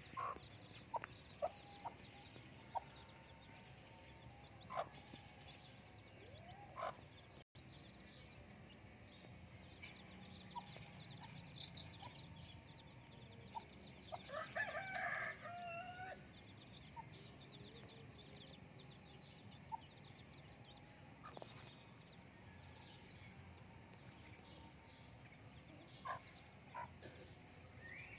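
Faint chickens: a hen's scattered soft clucks and short high chick peeps, with a rooster crowing once about halfway through.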